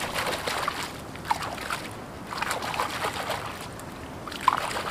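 Shallow water splashing and sloshing in several short bursts, with a sharp plop about a second in and another near the end.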